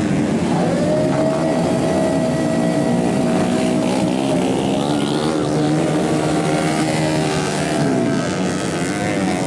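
Motocross bike engines revving hard, a high buzzing engine note held for seconds at a time and dipping in pitch as the throttle comes off, about four and eight seconds in.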